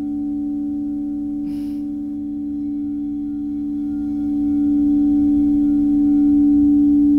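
Singing bowl sung by running a mallet around its rim: one steady, sustained ringing tone with faint higher overtones, swelling louder about four and a half seconds in.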